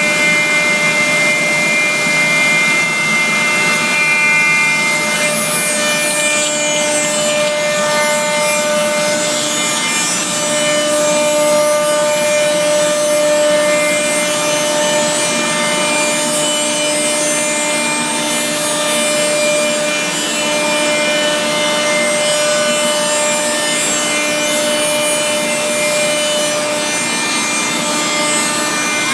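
Holzher Multimaster 7123 CNC machining centre milling wood: the router spindle's steady whine over the rasping noise of the cutter in the workpiece.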